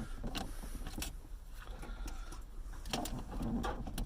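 Tin snips clicking and snapping through wires on a car seat's sensor harness: scattered sharp clicks, several close together near the end, over a low handling rumble.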